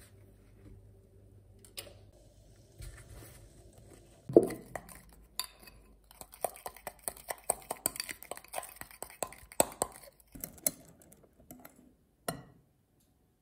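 Metal spoon stirring icing in a white bowl, clinking against the side of the bowl in quick strokes, about four a second. A single loud knock comes about four seconds in, before the stirring starts.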